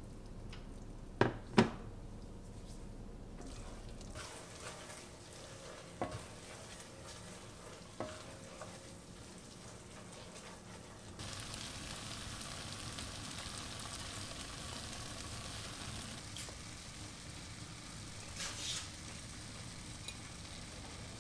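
Cooking in an enamelled cast-iron pot: two sharp knocks of cookware about a second in, then a spatula stirring and scraping with a few light knocks. A steady sizzle grows louder about halfway through.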